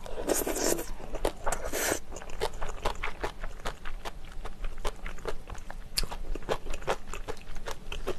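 Close-miked eating sounds from a mouthful of spicy pork-bone soup: two short slurps from the spoon in the first two seconds, then steady wet chewing with many crisp clicks.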